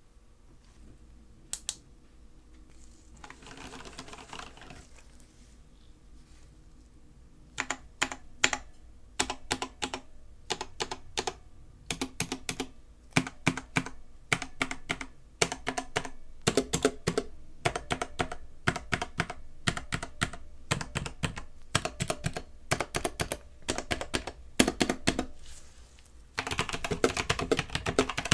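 Typing on a Corsair K70 RGB Pro Mini Wireless mechanical keyboard. Irregular keystrokes start about seven seconds in and become a fast, continuous run near the end, after a short rustle about four seconds in.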